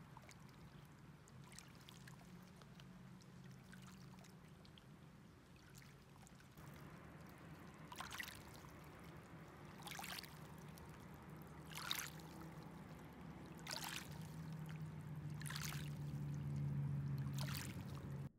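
Small waves lapping onto a pebble lakeshore: a faint, steady wash of water, with a soft splash about every two seconds in the second half.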